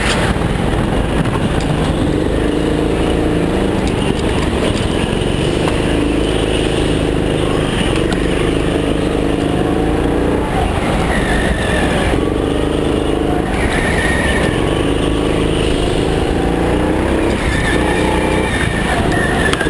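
Go-kart engine heard close from on board, rising in pitch along each straight and dropping back for each corner, several times over. Short tyre squeals on the slick concrete come in a few of the corners.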